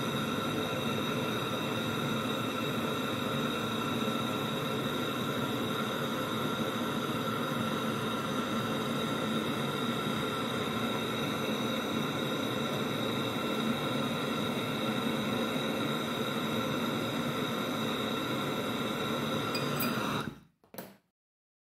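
Handheld butane pencil torch hissing steadily, with a few faint steady whistling tones in the hiss, as its flame heats a small steel spring to red heat for hardening. The hiss cuts off about 20 seconds in, and a brief short sound follows.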